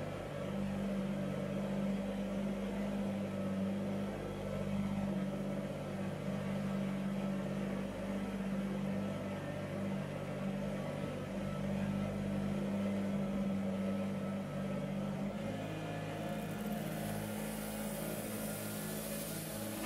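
Kubota BX compact tractor's small three-cylinder diesel engine running steadily while driving with a loaded front-end bucket. Near the end, gravel pours from the tipped loader bucket with a rushing hiss.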